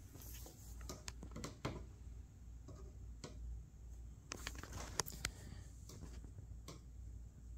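Scattered light clicks and taps as a continuity tester probe is touched against the metal rails and plastic pieces of a Carrera slot car track.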